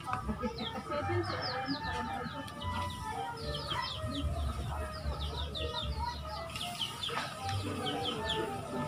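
Chickens clucking, with high peeping chirps coming in quick runs throughout.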